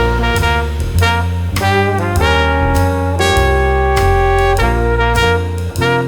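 Jazz background music led by a saxophone, with bass and drums keeping a steady beat.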